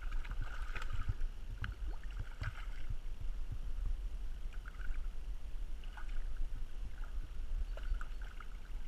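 A hooked trout splashing and thrashing at the water's surface in repeated short bursts, with a steady low wind rumble on the microphone.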